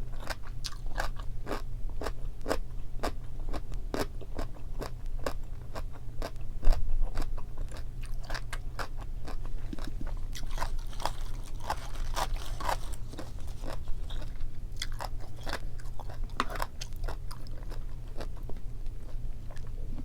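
Close-miked chewing of kimchi and boiled pork: crisp crunches at a steady pace of about two to three a second, with one louder knock about seven seconds in.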